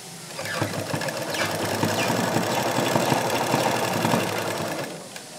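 Black household sewing machine running, its needle stitching lace onto fabric in a fast, even chatter for about four seconds before it stops.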